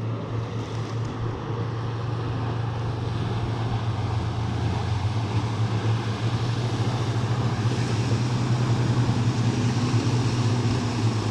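Outboard motor running steadily on a boat, with a low hum and a rushing wash of noise, growing gradually louder.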